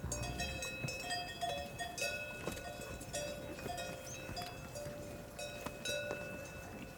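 Several cowbells clanking irregularly as the cattle wearing them move, each strike ringing briefly at its own fixed pitch.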